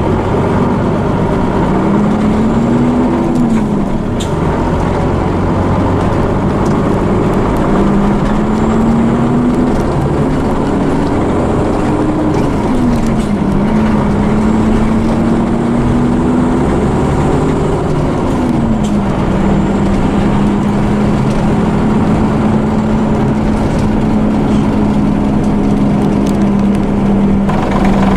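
Scania diesel engine of an Ikarus EAG E94 bus, heard from inside the passenger cabin while under way. The engine note climbs and drops back about three times as the bus accelerates up through the gears, then holds a steady pitch while cruising, over a constant rumble of road noise.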